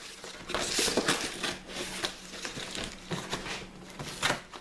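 Corrugated cardboard of a mailing box being ripped open by hand, torn along its side in a series of irregular crackling rips.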